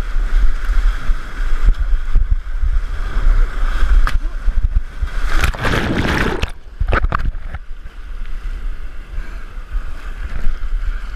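Whitewater rapid rushing loudly around a canoe, with a heavy low rumble on the microphone. About five and a half seconds in, a loud churning splash as the boat swamps and the camera plunges underwater, with a few sharp splashes just after, then the rush of the rapid goes on.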